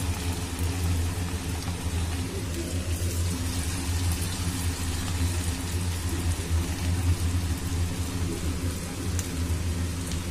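Semolina-and-potato dough rings deep-frying in a kadhai of oil, a steady even sizzle. A steady low hum runs underneath and is the loudest part.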